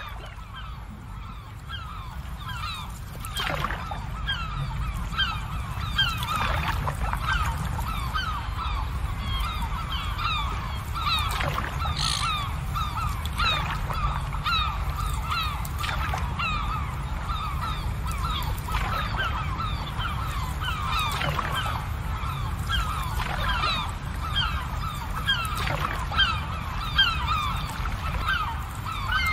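A large flock of birds calling continuously, many short overlapping calls over a steady low rumble, swelling over the first few seconds.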